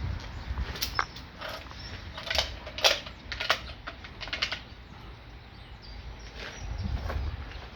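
Wicked Ridge Defender crossbow being handled, a string of irregular mechanical clicks and creaks with a low rumble underneath.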